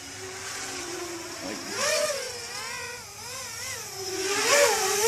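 Racing quadcopter's 2206 Tiger brushless motors and propellers whining in flight, the pitch wobbling up and down quickly with the throttle. It grows louder about two seconds in, eases off, then swells again near the end.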